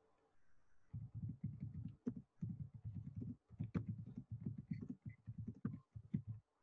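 A remote caller's voice coming through a failing video-call connection: muffled, garbled low fragments that chop in and out, the speech itself unintelligible as the audio breaks up.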